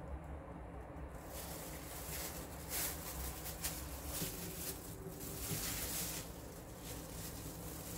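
Thin plastic food-prep gloves crinkling and rustling, with soft wet squishing, as hands squeeze a lemon over raw fish steaks and handle them on a steel platter; the noise comes in short irregular bursts.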